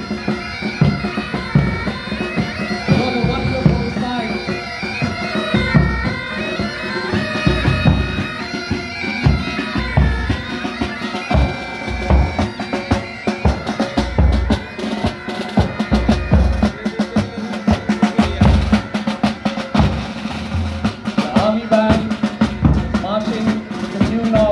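Military pipe band playing on the march: bagpipes sounding a tune over their steady drone, with regular bass and tenor drum beats.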